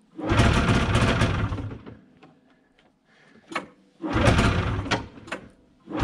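1990 Yamaha V-Max 540 snowmobile being pull-started: two hard pulls on the recoil starter, each a second or two of the two-stroke engine cranking over without catching, and a third pull beginning at the very end. The engine has not run in years.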